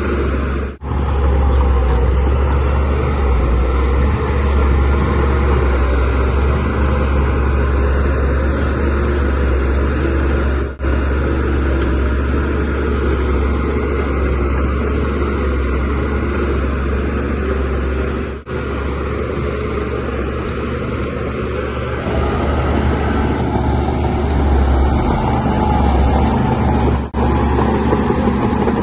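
Shantui DH17C3Pro bulldozer's diesel engine running steadily under load with a deep rumble while it pushes soil. The sound drops out briefly four times.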